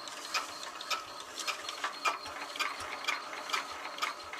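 A steady run of sharp mechanical ratcheting clicks, a few a second.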